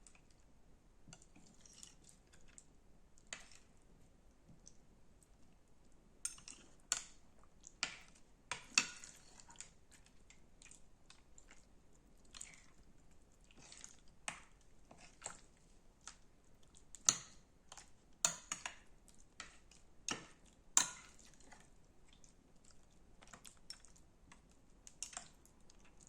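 Slime being squeezed and poked by hand, giving irregular sharp pops and clicks, thickest in the middle stretch.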